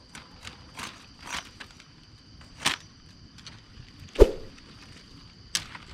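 Wood bonfire crackling, with scattered sharp pops, the loudest about four seconds in. Crickets chirr steadily underneath.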